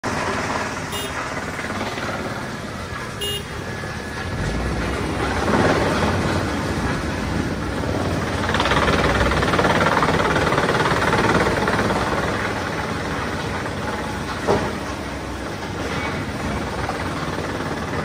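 MACREAT LDBX218 drum wood chipper running as branches are fed in, together with the Komatsu excavator's engine and the hydraulics working its grapple. The noise grows louder about five seconds in and eases off after about twelve seconds. There are two short high-pitched sounds in the first few seconds and one sharp knock near the end.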